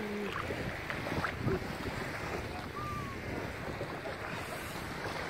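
Steady wind noise on the phone's microphone, with small sea waves lapping around people standing in the water.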